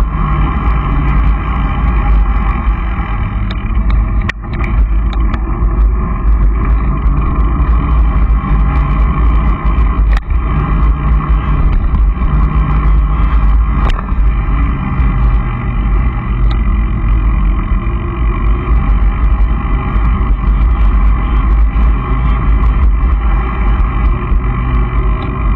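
Steady wind buffeting and road rumble on the microphone of a camera carried on a bike rolling along a paved lane, with scattered knocks and rattles from bumps, one of them louder about four seconds in.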